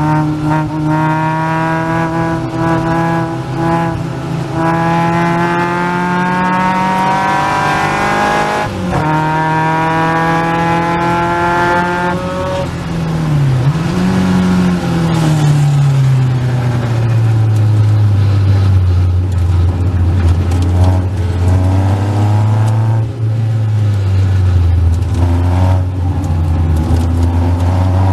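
Caterham Seven's 2.3-litre Ford Duratec four-cylinder at racing pace: the revs climb, shift up about nine seconds in and climb again. Around twelve seconds in the engine comes off the throttle with a brief blip on the downshift. Through the second half it runs at lower, fairly steady revs, then picks up again near the end.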